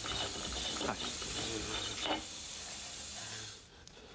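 Water running from a tap into a sink, a steady rushing hiss that stops about three and a half seconds in.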